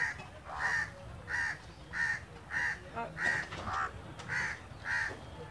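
House crows cawing in a steady run of short, even calls, about three every two seconds.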